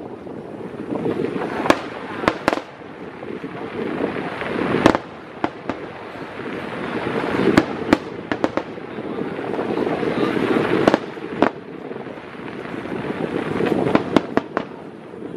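Aerial firework shells bursting overhead: a string of sharp bangs at uneven intervals, a dozen or so, over a wash of noise that swells and fades every few seconds.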